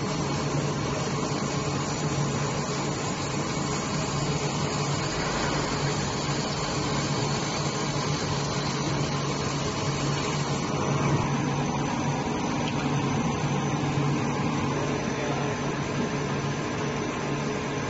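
Laser engraving machine running as it engraves a rubber stamp: a steady fan-like whirring with a low steady hum underneath.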